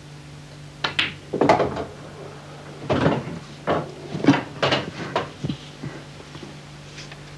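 Pool balls knocking and clunking in a run of about ten separate hard knocks over some five seconds, over a low steady hum.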